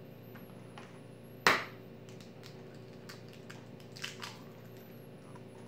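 An eggshell cracked sharply once against the rim of a bowl, followed by a scatter of small crackles and ticks as the shell is broken open over the hand, with a second, softer crack about four seconds in.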